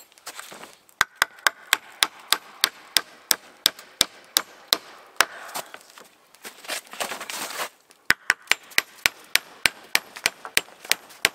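Nails being driven into a birch log with the head of an axe: sharp metal-on-wood strikes at about three a second. There are two runs of about a dozen blows, with a few seconds of rustling between them.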